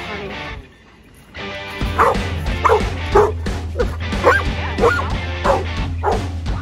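A dog yipping and barking in short high calls that rise and fall, about eight of them over four seconds starting about two seconds in: an excited dog eager for the surf. Music with a strong bass plays underneath.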